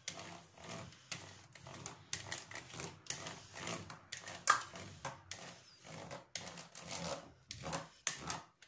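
Plastic spiked dough docker rolled back and forth over rolled-out pizza dough, pricking holes in it. It makes a rattling, scraping stroke with each pass, about two strokes a second.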